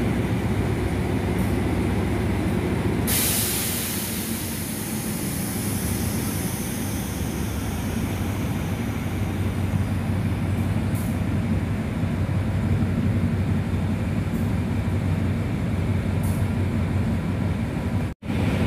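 Diesel-electric locomotive idling with a steady low engine drone. About three seconds in, a loud hiss of compressed air bursts out and tails off over several seconds.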